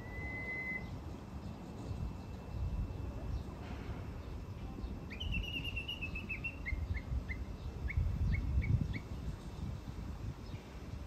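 Japanese bush warbler (uguisu) singing: a held whistled note right at the start, then about five seconds in a quick run of high notes dropping slightly in pitch, followed by a string of short, evenly repeated notes.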